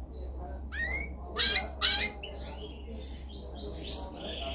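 Domestic canary singing: a few rising whistled notes, two loud harsh notes and a sharp high note, then a quick series of notes running into a fast rolling trill near the end. A steady low hum sits underneath.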